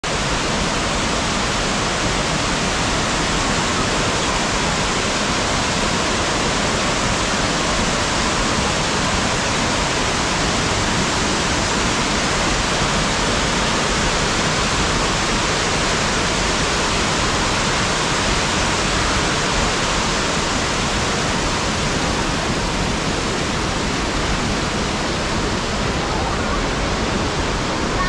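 Kiwai waterfall in spate after rain: a loud, steady rush of falling water, with floodwater running across the ground.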